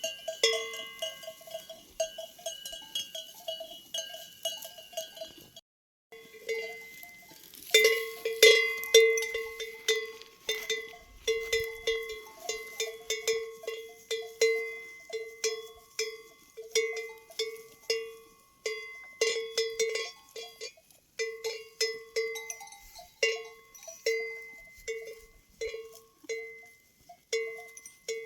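Large sheep bell of the kind hung on a flock's lead ram (mariyā), clanging in a swinging rhythm. About six seconds in it breaks off briefly, then a louder, lower bell rings at roughly one and a half strikes a second.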